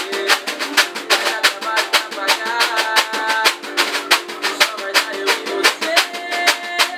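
Brazilian pagode music with a reco-reco scraper played along in a quick, even rhythm of about four to five sharp strokes a second, over melody and singing.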